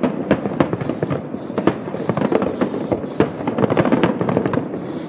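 Aerial firework shells bursting in a dense barrage: many sharp bangs a second, overlapping with crackle, without a break.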